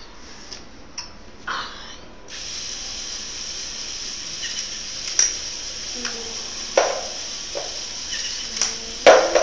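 Steady hiss with scattered plastic clicks and knocks from a LEGO Mindstorms pitching robot. Twice a short low motor hum ends in a sharp knock, the loudest one near the end.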